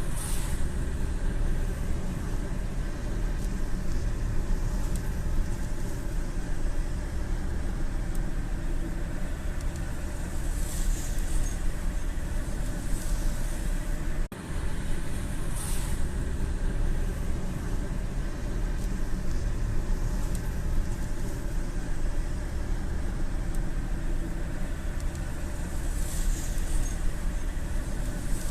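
Rain on a car's windshield heard from inside the cabin while driving on a highway, over steady low road and engine rumble, with a few brief hissing swells.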